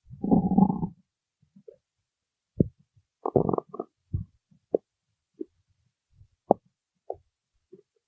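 A person's stomach growling: a long, loud gurgle in the first second, then a run of short, irregular gurgles and squeaks.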